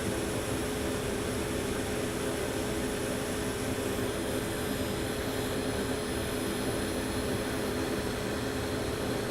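Hot air rework station blowing steadily, a constant airy rush with a low hum, while it heats a chip on a logic board to melt its solder balls.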